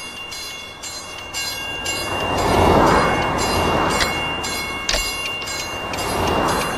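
Train running along the track: a steady rhythm of wheel clicks about twice a second, with high steady squealing tones and a rumble that swells and fades.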